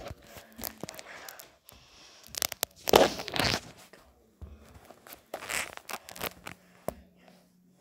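Phone microphone being handled and rubbed against clothing: scattered clicks and scraping, rustling bursts, the loudest about three seconds in and another about two seconds later.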